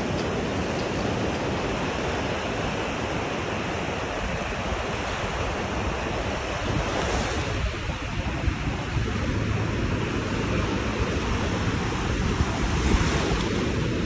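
Sea waves washing onto a sandy beach in a steady hiss of surf, with wind gusting and rumbling on the microphone.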